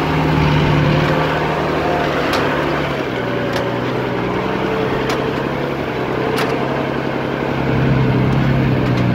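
Off-road vehicle's engine running under load over a rough dirt track, its pitch dropping and rising as the driver works the throttle, with a few sharp knocks from the body jolting over bumps.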